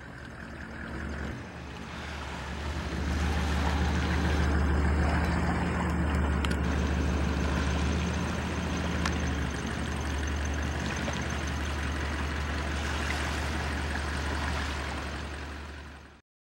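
An engine running steadily, a low hum with a wash of water or wind noise over it, growing louder over the first few seconds and then holding even.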